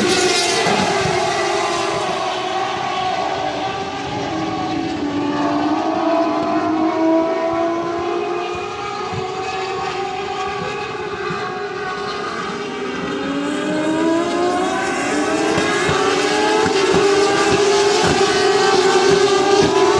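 Turismo Carretera race car engines running on track, their pitch dropping in the first second, holding fairly steady, then climbing again from about two-thirds of the way in as the cars accelerate.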